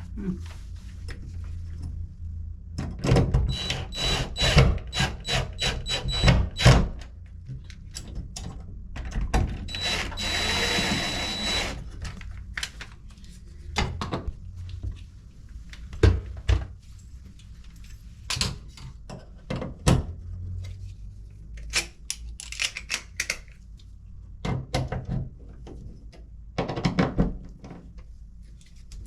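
Hand work on a wall-mounted light fixture plate: a series of sharp knocks and taps as a plastic wall anchor and screw are set, with a short run of a power drill/driver about ten seconds in.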